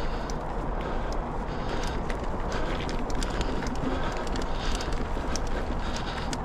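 Mountain bike riding over rocky, rooty singletrack: a steady low rumble of tyres and wind, with frequent sharp clicks and rattles from the bike over the rough ground.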